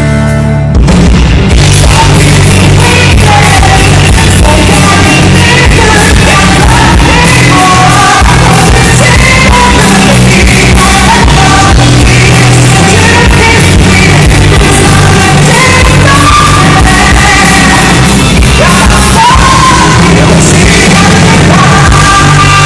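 Live rock band playing loudly, with a singer whose voice shouts and yells over distorted band accompaniment, echoing in a large hall.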